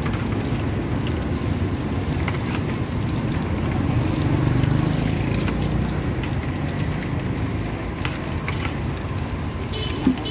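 Busy outdoor street-market background noise: a steady low rumble of motor traffic with scattered small clicks, and an engine tone swelling about four seconds in as a vehicle passes.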